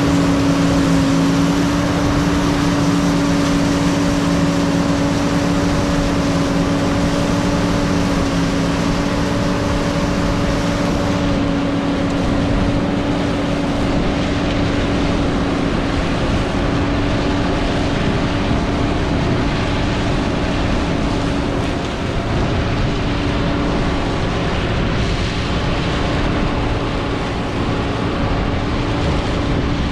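John Deere 9600 combine running steadily while harvesting soybeans: a constant mechanical rumble with a steady hum on top that fades out about halfway through.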